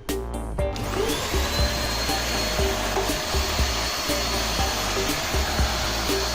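Eureka Forbes Quick Clean DX 1200-watt vacuum cleaner switched on about a second in, its motor whine rising quickly to a steady high pitch over a steady rushing noise.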